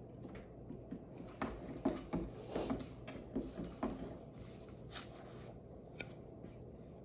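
Cats playing at a cardboard box: a run of soft knocks and scratchy rustles from paws and bodies against the cardboard, busiest in the first half, with a couple of brief scrapes later.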